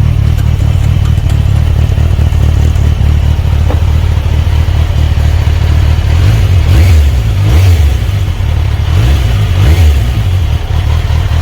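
Kawasaki Versys 1000 SE's inline-four engine idling through an Akrapovic titanium slip-on exhaust fitted with its silencer insert, then blipped several times in the second half.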